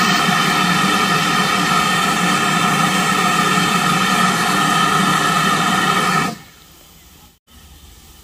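Steam locomotive No. 9351 standing at the platform and letting off steam: a loud, steady, ringing hiss with several held notes in it. It stops abruptly about six seconds in, leaving a faint background hiss.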